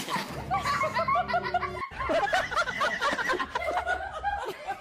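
A person laughing in quick repeated pulses. The laughter breaks off sharply just before two seconds in, then goes on.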